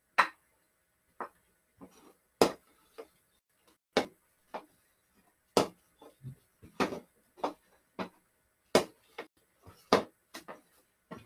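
Hockey stick blade knocking a ball during a stickhandling drill: a series of sharp, short clacks at an uneven pace, about one every second or so.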